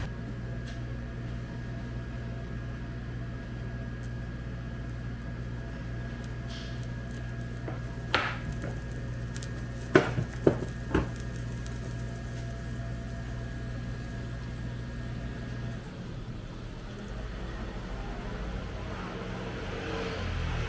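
An empty nonstick frying pan heating dry over a portable gas stove burner, against a steady low hum, with four or five sharp ticks a little before the middle of the stretch.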